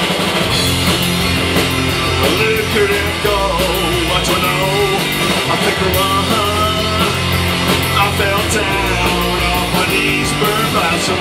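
A punk rock band playing live: electric guitars, bass guitar and drum kit at a steady loud level, with a singing voice over them.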